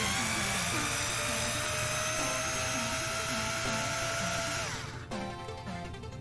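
A small cordless electric screwdriver spins up and runs steadily for about five seconds, backing out shock-tower screws, then winds down near the end.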